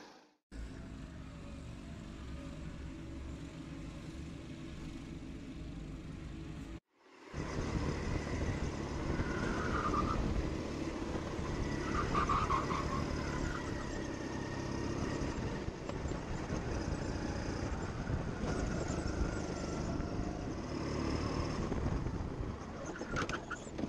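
Go-kart engine running as the kart is driven round the track, heard from the driver's seat, louder from about seven seconds in. The sound drops out briefly twice, near the start and about seven seconds in.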